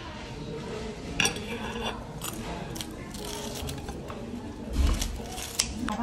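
Tableware clicking and clinking over a steady low background murmur, with a dull thump about five seconds in.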